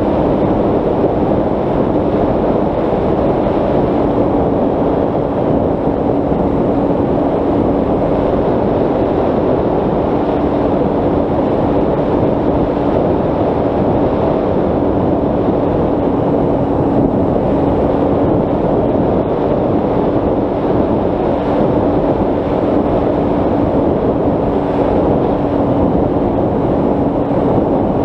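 Bixler 3 RC plane's Turnigy 3542 brushless motor spinning its 10x7 propeller at a steady cruise: an even hum under heavy wind rush on the onboard camera's microphone.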